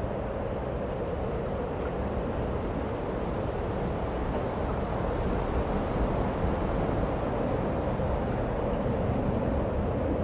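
A steady rushing rumble with no distinct tones, slowly growing a little louder.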